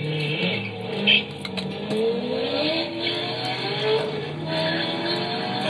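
Chevrolet C5 Corvette V8 engines accelerating hard from a standstill. The engine note climbs in pitch several times in a row as they shift up.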